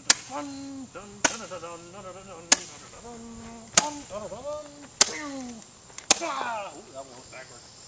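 Small Roman candle firing its balls of fire: six sharp pops, one about every second and a quarter.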